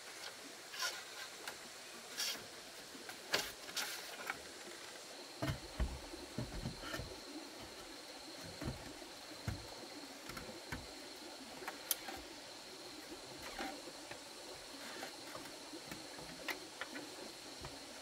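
Irregular knocks and clicks of things being handled, with a cluster of low thuds about five to seven seconds in, over a steady hiss of running water and a faint, steady high insect whine.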